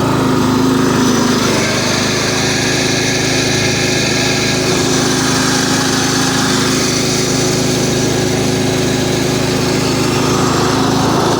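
Riding lawn mower's small engine running steadily as the mower drives forward at speed.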